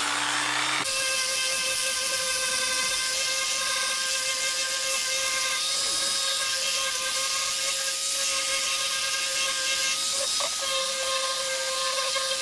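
Handheld electric power tool winding up to speed in the first second, then running steadily with a high whine over a loud hiss; the pitch dips briefly about ten seconds in.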